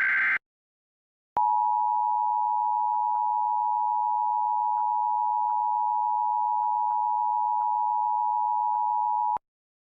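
The tail of a SAME digital header burst, a short screechy data warble, then after about a second of silence the Emergency Alert System two-tone attention signal: two steady tones sounded together for about eight seconds, cut off cleanly.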